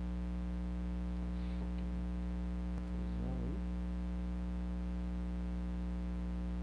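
Steady low electrical hum with a buzzy row of overtones, with a faint, short pitched sound about three seconds in.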